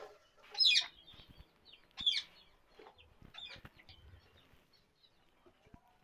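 Indian ringneck parakeet calls: two sharp, short squawks, each falling in pitch, about a second and a half apart, followed by a few fainter calls.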